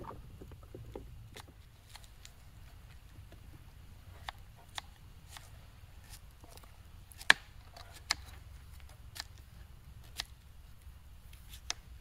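Irregular sharp taps and clicks of cooking utensils being handled during food preparation, roughly one a second, with one louder knock about seven seconds in, over a faint low rumble.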